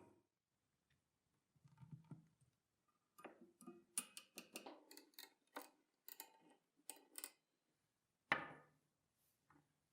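Faint, sharp clicks and taps, about a dozen over four seconds, then one louder knock with a brief ring, like small hard parts being handled or set down.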